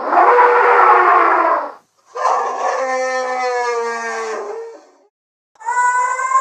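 Mammoth sound effects: three separate loud animal calls cut apart by silences. The second and third are long pitched calls, the second drifting slowly down in pitch.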